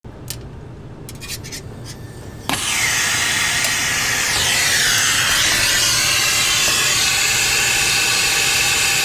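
A few faint clicks, then a loud, steady rushing hiss of gas that starts suddenly about two and a half seconds in and holds on.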